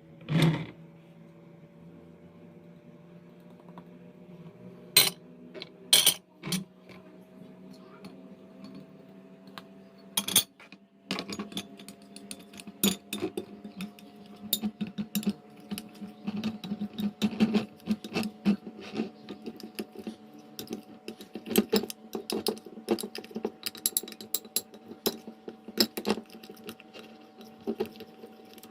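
A kitchen utensil clicking and clinking rapidly and unevenly against a dish as ingredients are stirred, over a steady hum with one tone slowly rising in pitch. A few louder single knocks come in the first ten seconds.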